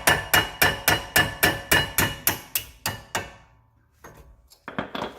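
Hammer striking a pin punch to tap out the brake caliper's pad retaining pins: an even run of sharp metallic taps, about three a second, each ringing briefly. The taps die away about three seconds in, and a few more come near the end.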